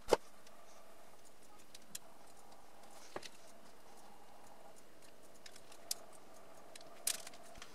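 A runny batter-like mixture poured slowly from a plastic measuring jug into a parchment-lined baking dish: a sharp tap at the start, then a faint steady background with a few light, scattered clicks.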